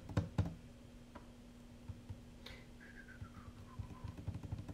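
Light taps and clicks of fingers on the plastic case of a FrSky Taranis QX7 radio transmitter, several close together in the first half second, then a few sparse ticks, over a steady low hum. About halfway through, a faint whistle-like tone slides down in pitch for about a second and a half.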